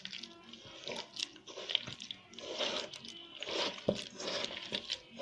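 Fingers squeezing and mixing soft butter, egg, sugar and flour together in a glass bowl, in short irregular strokes, with a sharp tap about four seconds in.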